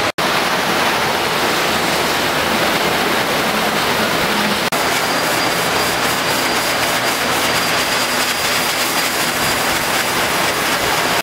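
Livestock blower blowing air through a Hereford calf's coat: a loud, steady rush of air, with a faint high motor whine from about a third of the way in.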